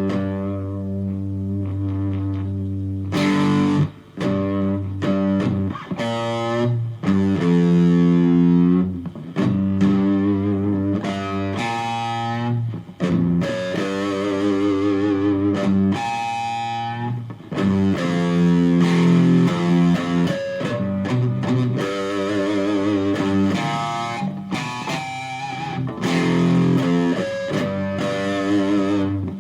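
Electric guitar, an FGN Stratocaster plugged straight into a Fender Studio Valve tube amp, played with an overdriven tone: held single notes and chords shaken with vibrato, with a couple of brief pauses.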